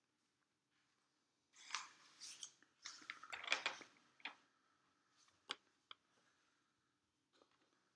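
Sheets of hole-punched notebook paper being turned over: a crisp rustle and crinkle lasting a couple of seconds, then a few light ticks as the page settles.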